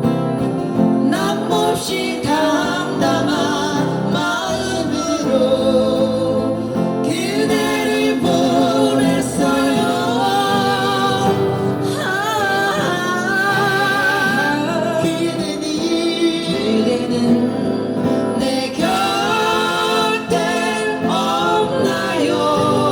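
A singer performing a song with instrumental accompaniment, holding long notes with vibrato over a steady backing.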